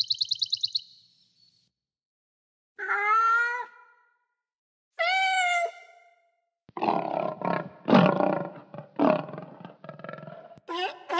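A sparrow's rapid high chirping trill ends less than a second in. Then come two short cat meows, each falling at the end, about two seconds apart. A male lion follows with about four seconds of loud, rough roars and grunts, and a run of rising calls from another animal begins just before the end.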